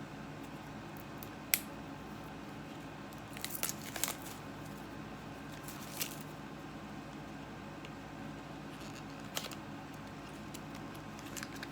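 Handling and opening the small cardboard box of a liquid eyeshadow: scattered crinkles, a short cluster of tearing and rustling about three and a half to four seconds in, and a few single clicks, over a steady low hum.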